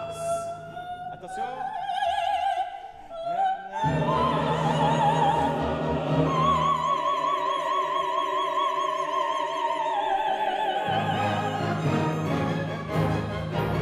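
A female opera singer sings with wide vibrato, accompanied by an orchestra. The orchestra comes in more fully about four seconds in, and she holds one long high note through the middle.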